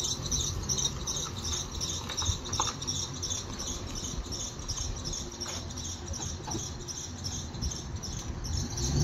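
2003 Chevy SSR's V8 with Corsa exhaust running low as the truck rolls off, with a regular high-pitched chirp about three times a second from the squeaky belt or pulleys the owner says need attention. The engine note rises near the end.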